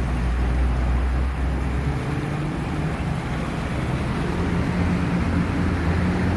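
The engine of a 1998 24 ft Wellcraft Eclipse running as the boat moves along, over the rush of water and wind. About two seconds in, a deep hum gives way to a higher, steady drone.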